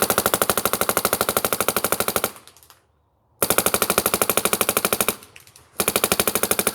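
Paintball marker firing in fast full-rate strings, set to a ramping PSP 3-shot mode at about 15 balls per second, fed by a Dye Rotor R2 loader. Three strings of rapid shots: one of about two seconds, a short pause, another of under two seconds, and a third starting near the end.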